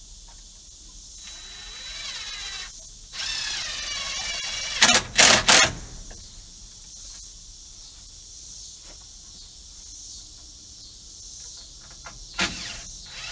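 Cordless drill driving screws into a wooden roost bar. The motor whines up in pitch about a second in and stops, runs again rising in pitch and ends in three loud bursts about five seconds in, then starts up again near the end.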